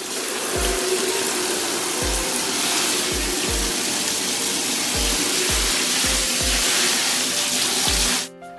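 Handheld shower head spraying water into a collapsible plastic tub as it fills, a steady hiss of water that cuts off suddenly near the end. Background music with a low beat plays underneath.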